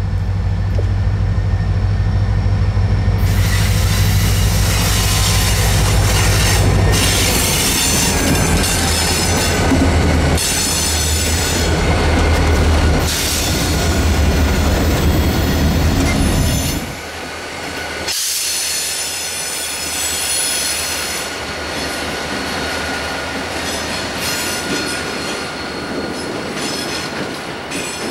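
EMD SD38 diesel locomotives of a light-engine move passing close by, engines running with a loud, deep drone while the wheels squeal on the rail. About two-thirds of the way through, the engine drone drops away and a quieter, high wheel squeal goes on.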